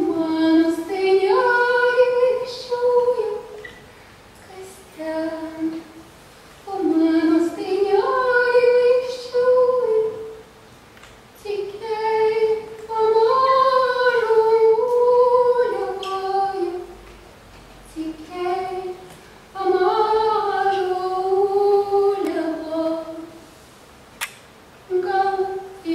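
A high solo voice singing unaccompanied in slow, melodic phrases of two to four seconds with short pauses between them. There is a single sharp click about 24 seconds in.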